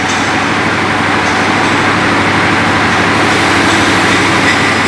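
Large diesel bus engine idling steadily close by.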